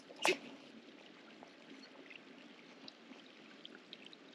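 Faint, steady trickle of running water, with one short sharp swish or click about a quarter second in.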